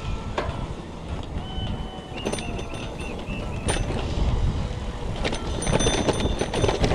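A vehicle running along a road: a steady rumble of engine and road noise, with a few sharp clicks.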